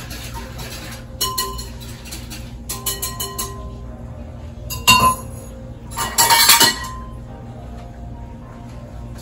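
Kitchen utensils clinking against glass mixing bowls and dishes: short runs of light ringing clinks, a single sharp clink about five seconds in, and a louder clatter of dishes just after six seconds.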